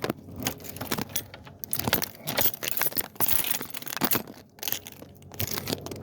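Keys jangling, with a run of irregular metallic clicks and rattles, as a door is closed and locked up.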